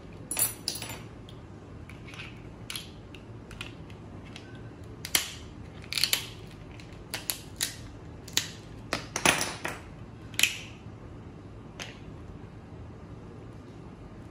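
Crab shells and claws cracking and snapping as they are broken open with a metal crab cracker and pulled apart by hand: an irregular string of sharp cracks, thickest through the middle.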